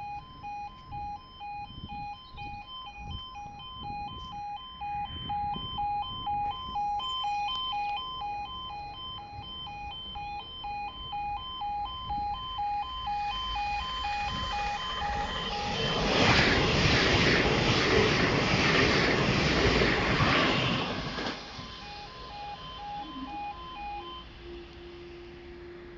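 Level crossing's two-tone warning alarm sounding steadily as a Hitachi Class 800 Azuma bi-mode train (800208) passes at speed on its diesel engines, a loud rush with a rhythmic clatter of wheels lasting about five seconds. The alarm cuts off near the end, and a low steady hum begins as the barriers start to rise.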